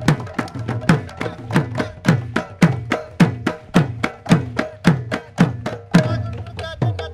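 Bengali mridanga (khol) drumming at a quick, steady pace: deep bass-head strokes that slide down in pitch nearly twice a second, with a rapid run of sharp, bright strokes in between.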